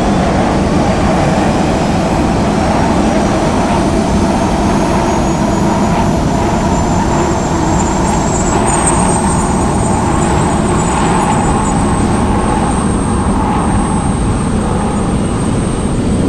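Fighter jet engines on an aircraft carrier's flight deck: a loud, steady roar, with a thin high whine that sets in about halfway through and holds.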